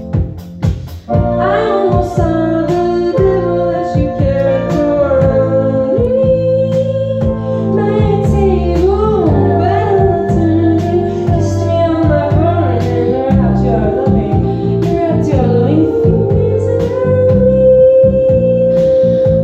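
Live indie-pop band playing: synthesizer keyboards and electric bass, with a held synth note and a steady ticking beat under voices singing.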